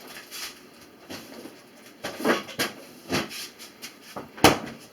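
A few irregular knocks and clatters of carrots and a knife being handled on a kitchen cutting board, the sharpest knock near the end.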